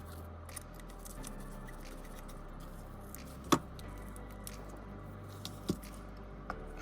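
Light clicks and taps of small tools and parts being handled on a phone repair bench, with one sharper click about three and a half seconds in, over a low steady hum.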